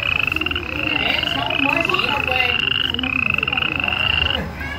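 A high, rapidly pulsed animal trill, repeated in phrases of about a second that each rise slightly in pitch, with fainter wavering chirps beneath; the trilling stops shortly before the end.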